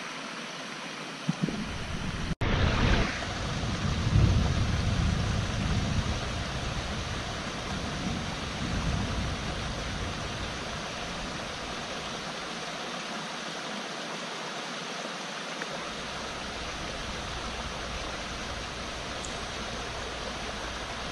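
Rain-fed stream rushing over rocks, a steady water noise. For the first several seconds it is mixed with an irregular low rumbling.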